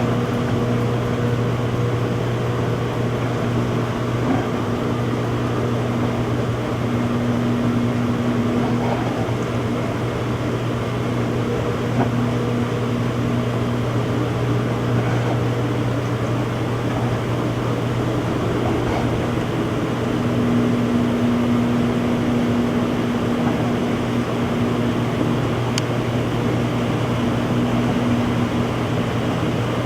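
Front-load washing machine running its spin cycle: a steady hum of the motor and spinning drum, with a higher tone that fades out about a third of the way through and returns about two-thirds in.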